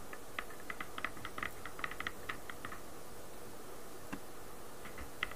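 Thin wooden rolling pin rolling out bread dough on a floured board: a quick run of light clicks and taps that thins out to a few scattered ones after about three seconds.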